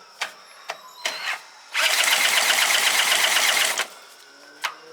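Two-stroke outboard motor being cranked over for about two seconds without catching, after a few light clicks. It is a no-start: the engine turns over but does not fire.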